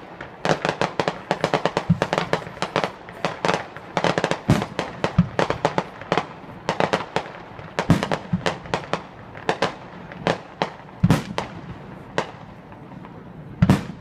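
Fireworks display: aerial shells bursting in a rapid, dense run of crackling pops and bangs, with several deeper, louder booms standing out.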